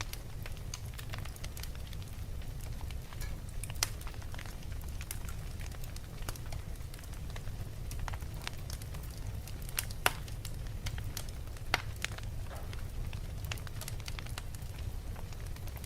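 Fire crackling, with irregular sharp pops and snaps over a steady low rumble. A few pops stand out, the loudest about ten seconds in.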